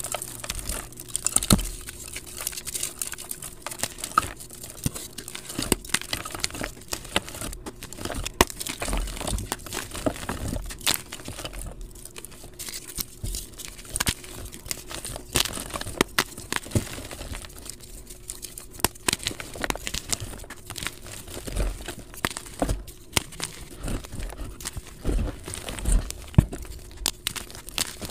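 Dyed gym chalk crushed and crumbled between the fingers into powder: a dense, irregular run of crunches and crackles with many sharp snaps, played back sped up.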